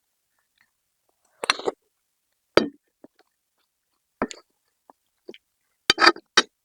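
Close-miked eating sounds: a series of short, sharp bites and chews with quiet gaps between them, ending in a quick cluster of three.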